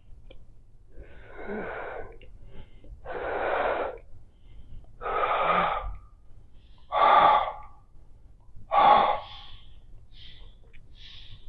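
A woman breathing loudly with a mouthful of bubble gum: five breaths about two seconds apart, the last two shorter and the loudest.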